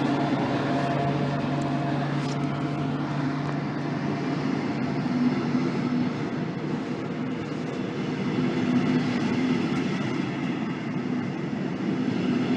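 A train running steadily: a continuous rumble of wheels and motor with a faint held hum.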